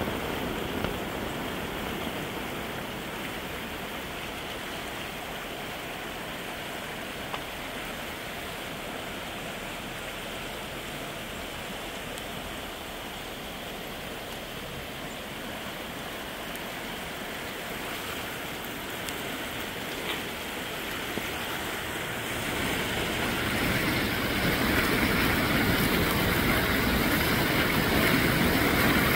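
Muddy floodwater rushing down a concrete storm-drainage channel: a steady wash of water noise that grows louder over the last several seconds, as water pouring from a culvert comes into view.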